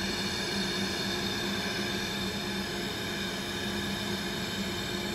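Double-welding 3-ply flat mask machine running: a steady mechanical hum with a high whine, unchanging throughout.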